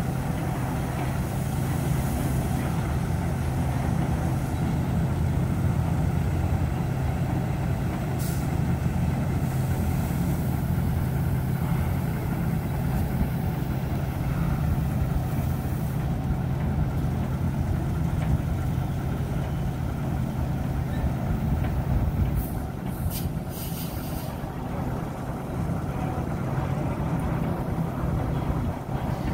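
Steady low rumble of diesel truck engines and hydraulic truck-dumper machinery, with brief hisses about eight seconds in and again around twenty-three seconds in.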